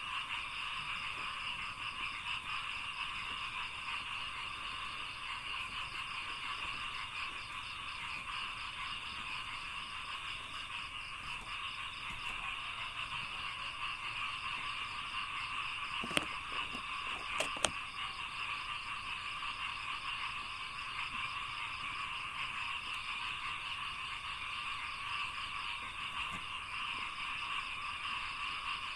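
Dense chorus of frogs calling in a rice paddy, a continuous many-voiced croaking with a fast pulsing trill higher up. Three sharp clicks about halfway through.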